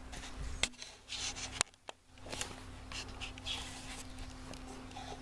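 Handheld camera being moved, with rubbing, rustling and scattered clicks over a faint steady hum. The sound drops almost to nothing for a moment a little under two seconds in.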